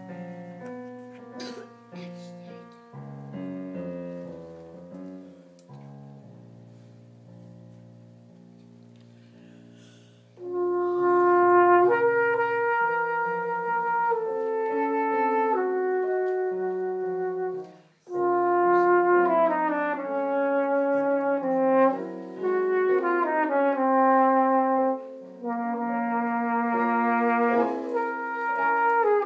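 A piano plays a soft introduction alone. About ten seconds in, a trumpet enters with a slow, sustained melody over the piano accompaniment, breaking off briefly a little past halfway before carrying on.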